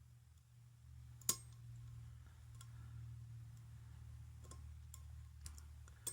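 Small sharp clicks of a lock pick working the pins of a pin-tumbler challenge lock, one louder click about a second in and a few fainter ones after, over a low steady hum.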